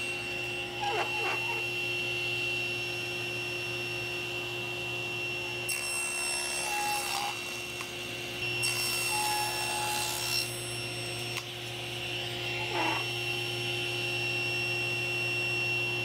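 Table saw running steadily with a constant hum and whine, its blade crosscutting walnut and maple boards several times; each cut adds a hissing rasp on top of the motor.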